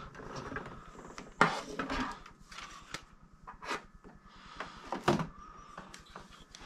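Plastic Transformers action figure being handled and posed: scattered sharp plastic clicks and light knocks over faint handling rustle.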